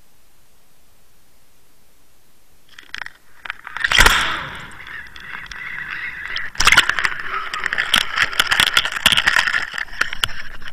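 Steady hiss from an underwater camera housing, then from about three seconds in loud knocks and rushing, splashing water with a dense clatter as the camera on the fishing rig is reeled up through the water and lifted out. The two loudest knocks come about four and six and a half seconds in.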